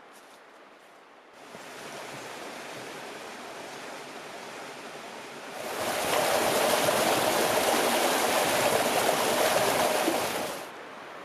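Rushing water, steady: moderate from about a second and a half in, much louder from about halfway, then cutting off abruptly near the end.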